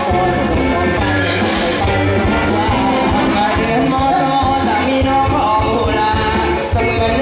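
Live band music with a male lead singer, the drums keeping a steady beat under the voice and instruments.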